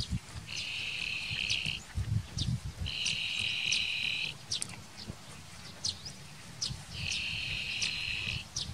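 Insect buzzing in three bursts of a little over a second each, with short high chirps scattered between them over a low rumble.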